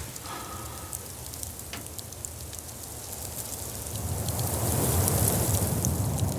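Storm noise: a steady rain-like hiss with scattered ticks, and a low rumble that swells about four seconds in.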